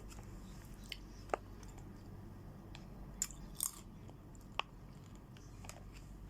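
A few soft crunches and small clicks, spaced about a second apart, from someone chewing chips or chocolate snacks.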